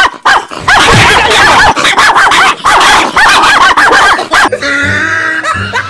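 Rapid, repeated dog barks, the prank's fake barking, several a second. About four and a half seconds in they give way to a short music jingle.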